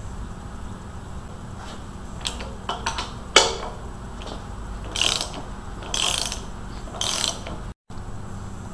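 Ratchet wrench running down cylinder head bolts on a Ford small-block engine. A few light clicks lead to a sharp click about three seconds in, then three short bursts of ratchet clicking come about a second apart.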